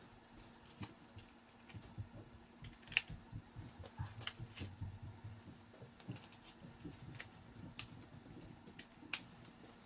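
Faint scattered clicks and light rustling of hands handling a leather shoulder holster and buttoning a shirt.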